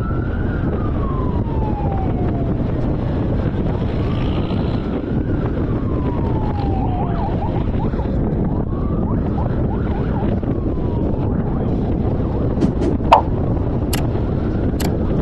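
Police siren wailing, each cycle rising quickly and then sliding slowly down, repeating every four to five seconds and growing fainter, over steady road noise from the following car. A few sharp clicks near the end, the loudest about 13 seconds in.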